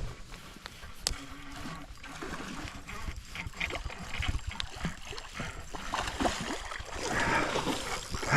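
Irregular splashing in creek water, growing busier in the last couple of seconds, as a hooked fish is reeled in on a fishing line.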